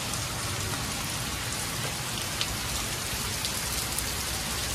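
Heavy rain falling steadily, an even hiss with a few sharper ticks of drops striking close by.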